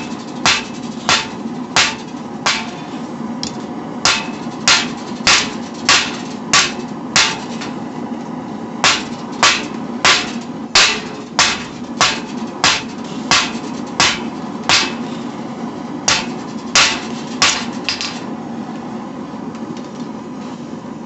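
Hand hammer striking hot steel on an anvil, an old file being forged into a knife blank. The blows are steady and come about every 0.6 s, with a short pause about eight seconds in, and they stop near the end. A steady low rush from the running forge carries on underneath.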